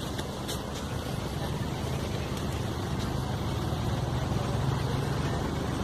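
A steady low engine rumble, slowly growing a little louder.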